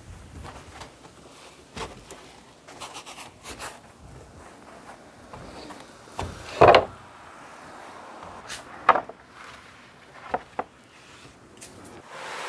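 Wooden boards and gear being handled and set down in a pickup truck bed lined with a thick carpet mat: scattered knocks and rubbing, with one heavy thump a little past halfway and a few sharp clicks after it.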